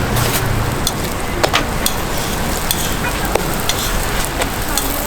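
Hotteok frying in oil on a flat griddle, a steady sizzle with frequent sharp clicks and pops scattered through it.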